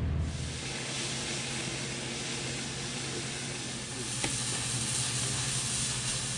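Steady hiss with a low hum underneath.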